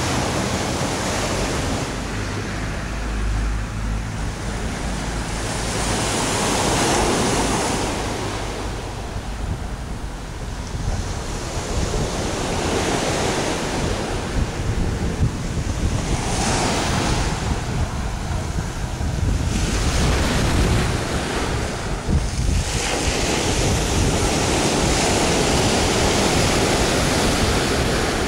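Surf breaking and washing up a beach, rising and falling in repeated swells, with wind buffeting the microphone.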